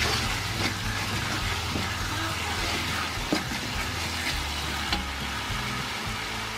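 Tomato, garlic and spice paste sizzling in hot oil in a metal wok while a metal spoon stirs it, scraping and clicking against the pan, with one sharper click a little past the middle. A low steady hum runs underneath.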